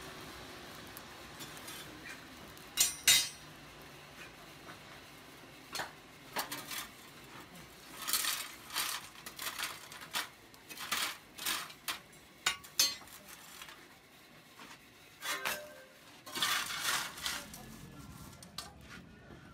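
Iron tools and rods clinking and scraping against each other and the forge as a charcoal fire is raked and a bundle of thin iron rods is pushed into the coals: irregular metallic clatters, the loudest about three seconds in.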